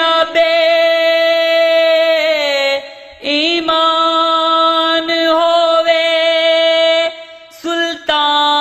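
Solo male voice singing Punjabi Sufi kalam (si harfi), unaccompanied, drawing out two long held notes: the first breaks off about three seconds in, the second about seven seconds in, followed by shorter sung phrases.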